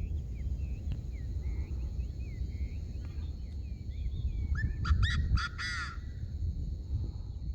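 Birds calling: a run of short thin chirps, then a louder burst of several harsh, ringing calls about five seconds in. A steady high whine and a low rumble run underneath.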